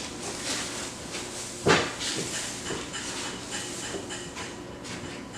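Small square hay bales being handled and stacked, with rustling and scraping and a few knocks; one bale lands with a loud thud about two seconds in.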